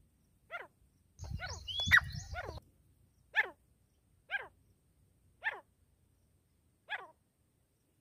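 Grey francolin calling: a run of short, harsh notes that each fall steeply in pitch, about one a second. From about one to two and a half seconds in, several calls crowd together with a rising whistled note over a low rumble.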